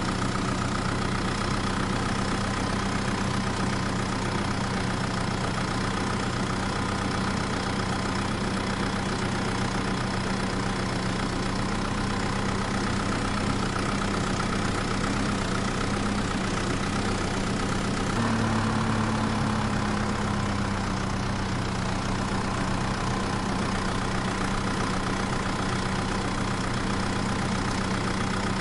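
Vehicle engine idling steadily, with a brief rise in pitch about eighteen seconds in that settles back down.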